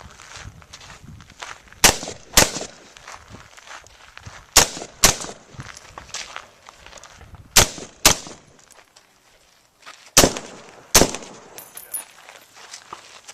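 Rifle shots fired in pairs: four pairs of sharp cracks, the two shots in each pair about half a second apart, each with a short echo, and fainter cracks between them.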